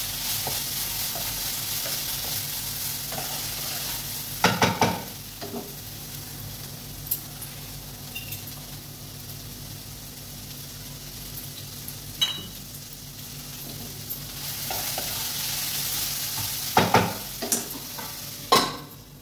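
Potatoes frying in oil in a kadai on a gas stove, sizzling while a spatula stirs them, with a few sharp knocks of utensils against the pan. The sizzle is quieter through the middle, while the kadai is lidded, and louder again near the end.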